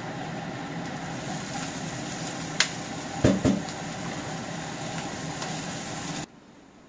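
Garlic sizzling in oil in a nonstick wok with a steady hiss. About three seconds in come a few heavy thuds as chopped cauliflower, broccoli and carrot are tipped into the pan, and the hiss cuts off suddenly near the end.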